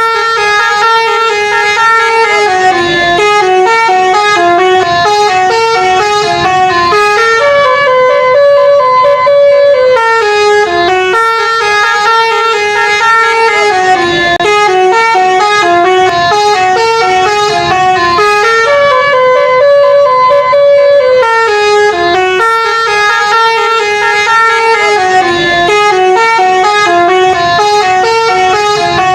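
Indonesian 'telolet' multi-tone bus horn playing a stepped melody of short held notes over and over without a break.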